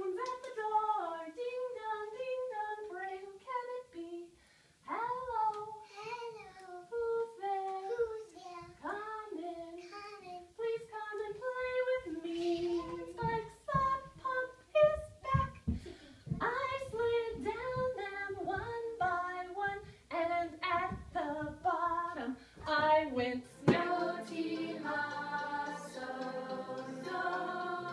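A woman and young children singing a children's song together, the notes sliding and breaking from word to word. About 24 seconds in this gives way suddenly to steady instrumental music with sustained notes.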